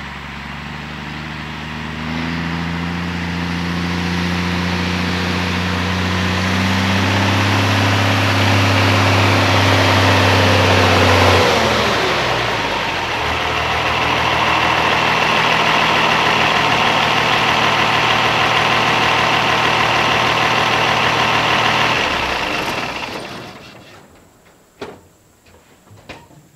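M35A2 deuce-and-a-half army truck's diesel engine running as the truck drives up, getting louder over the first ten seconds, with a break about eleven seconds in, then steady running until the engine stops about twenty-two seconds in. A few light knocks follow near the end.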